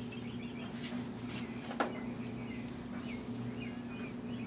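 Steady low hum with small birds chirping now and then in the background, and a light click a little under two seconds in.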